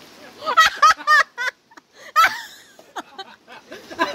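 People laughing in several short bursts, with quieter gaps between.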